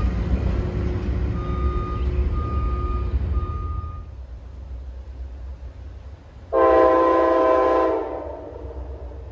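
A yellow track-maintenance machine's back-up alarm beeping steadily, about one beep a second, over its engine running, fading out about four seconds in. Then comes a single train horn blast, several notes sounding together, held for about a second and a half.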